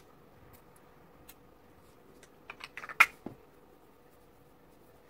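Small cosmetic container being handled: a quick run of light clicks and taps about two and a half seconds in, ending in one sharp click, with quiet room tone either side.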